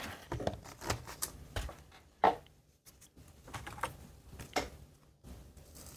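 Small plastic nursery pots and a plastic tray being handled: a scatter of light clicks and taps, with one sharper knock about two seconds in.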